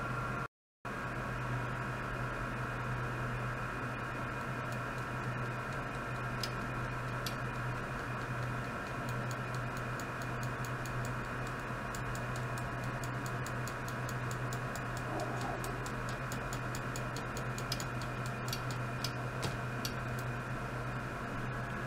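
Ultrasonic test equipment running, a function generator driving ultrasonic probes: a steady low electrical hum with several high steady tones over it. From about six seconds in come irregular sharp ticks, thickest in the second half. The sound drops out for a moment about half a second in.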